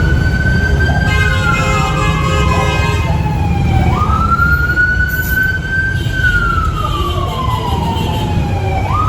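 Fire truck siren on a slow wail, each cycle rising quickly and then falling slowly, repeating about every five seconds over a steady low rumble. A second steady tone sounds over it for about two seconds near the start, and fainter again later.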